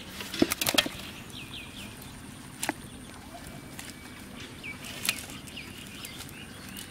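Wet cast net and water-hyacinth leaves rustling and clicking as fish are worked free of the mesh by hand, with a burst of sharp clicks about half a second in and single taps near the middle and later. A bird chirps several short, falling calls in the background.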